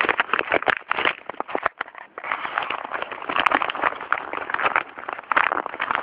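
Cardboard shipping parcel and its packing being handled and opened by hand: a dense run of rustling and crackling with many small snaps, easing briefly about two seconds in.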